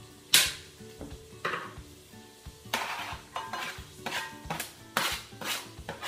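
A knife chops on a plastic cutting board, a hard strike or two at first; then from about halfway it taps and scrapes about twice a second as chopped garlic is pushed off the board into a metal pot. Background music plays underneath.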